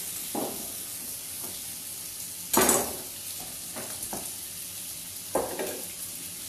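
Strips of chicken thigh sizzling in hot oil in a pan over a high heat, with a utensil stirring and clattering against the pan several times; the loudest clatter comes about two and a half seconds in.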